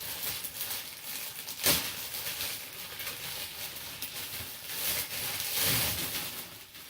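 Packing paper and bubble wrap rustling and crinkling as the vacuum hose is unwrapped by hand, with a sharp knock about 1.7 s in and a louder burst of crinkling near the end.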